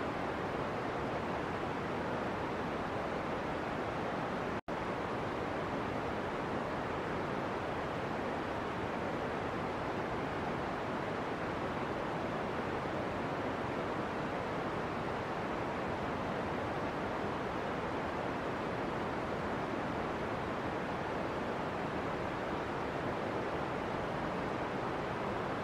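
Steady, even rushing noise that does not change, with a momentary dropout to silence about four and a half seconds in.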